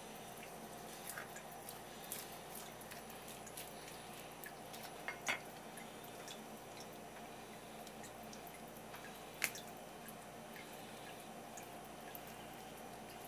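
Sparse, faint wet clicks and smacks of hands pulling at the flesh and skin of a raw tuna collar on a wooden board, a few sharp ones standing out about five and nine seconds in, over a steady low room hum.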